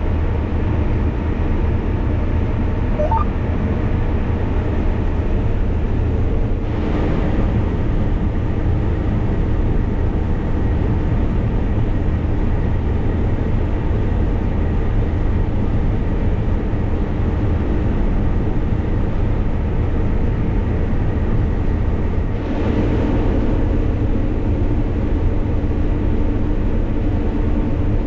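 Cotton stripper running steadily as it harvests, a continuous engine and machinery drone, with the noise swelling briefly about seven seconds in and again near twenty-two seconds.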